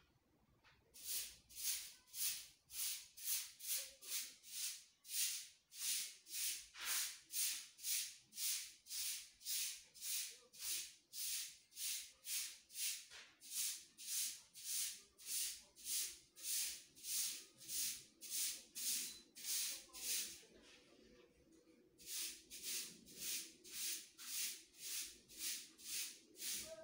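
A steady rhythm of short, high hissing strokes, about two a second, like a shaker in a music track. It breaks off for about a second and a half near the 20-second mark, then picks up again.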